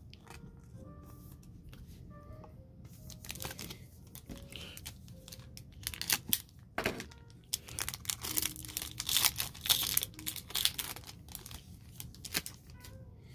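A trading-card pack wrapper being torn open and crinkled: a run of scattered rips and crackles that starts a few seconds in and is thickest in the second half.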